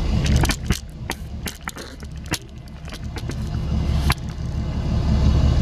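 Handling noise of a handheld camera being moved about: a scatter of sharp clicks and rubbing in the first couple of seconds and another click about four seconds in, over a steady low hum.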